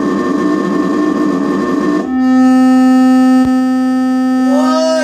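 Electronic doorbell making strange sounds it was never meant to make: a rough, wavering buzz, then about two seconds in a steady droning electronic tone. A single click comes partway through, and a short warbling glide in pitch near the end.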